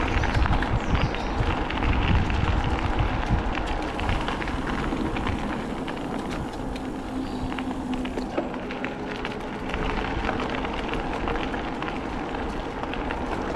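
Bicycle tyres rolling along an unsurfaced cycle path, a steady dense crackle over a low rumble.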